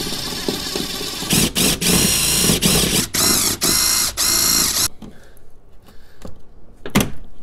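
Cordless drill drilling out the steel pop rivets that hold a factory 6.5-inch door speaker. The motor runs, then the bit bites into the rivets with loud grinding in several bursts and short breaks, stopping about five seconds in. Quieter handling noises follow, with one sharp clack near the end.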